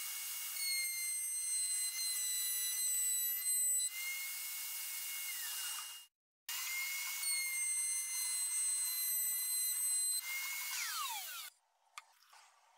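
Router in a router table running at speed with a high-pitched whine, its pitch sagging slightly mid-run as the bit cuts the wood. It runs in two stretches with a short break about six seconds in. The second run ends with the motor winding down, and a single click follows near the end.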